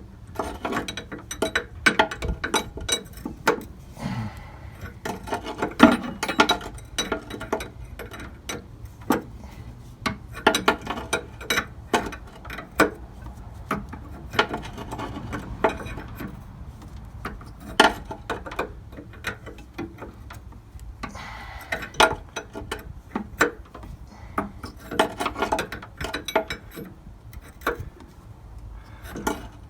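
Wrench clicking and clinking against a new brake light switch as it is turned tighter into its tapered pipe thread, in short irregular runs of clicks with pauses between.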